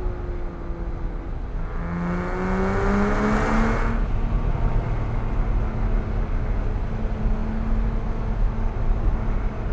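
Porsche 987.1 Cayman S flat-six engine accelerating through the curves. Its pitch rises for about two seconds, then holds steady, and starts falling near the end as the car eases off. A low road and tyre rumble runs underneath.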